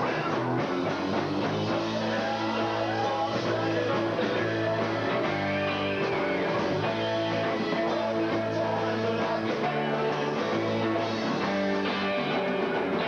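Live rock band playing: electric guitar over a walking bass line and drum kit, steady and unbroken.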